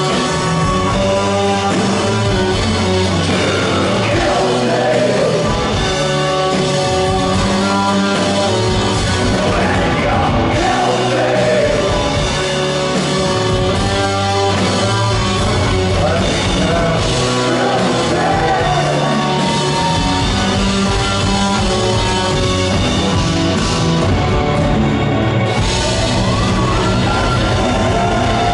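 Live rock band playing loud and without a break: electric guitars, bass and drums under a male singer, heard through the PA of a concert hall.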